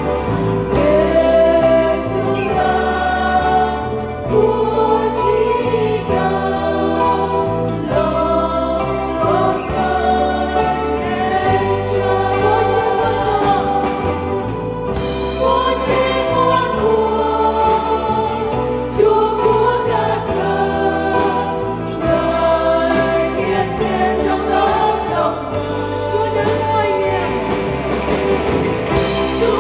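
Mixed church choir singing a Vietnamese worship song with band accompaniment, the voices holding long notes over a bass line that moves every second or two.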